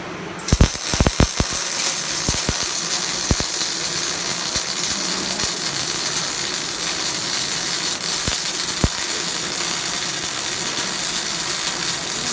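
Semi-automatic (MIG/MAG) welding arc struck about half a second in, with several sharp pops as it starts, then running as a steady, loud hiss with an occasional pop.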